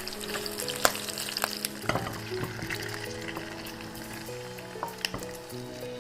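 Chunks of pork belly frying in hot oil in a wok over high heat, a steady sizzle with sharp clicks and scrapes as they are stir-fried.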